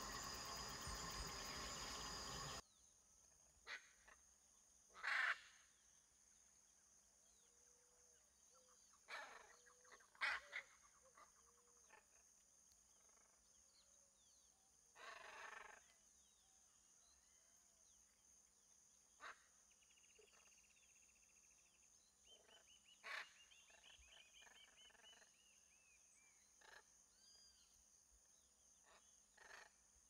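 Hyacinth macaws giving short, loud, harsh squawks, singly and in close pairs, every few seconds, with quiet stretches between them.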